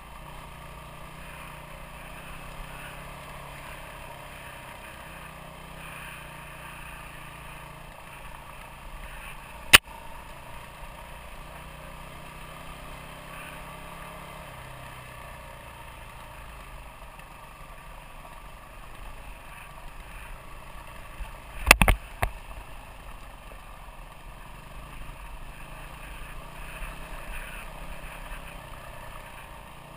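Motorcycle engine running steadily on a dirt road ride, its pitch shifting a little with the throttle. A sharp knock about ten seconds in, and a louder cluster of knocks a little after twenty seconds.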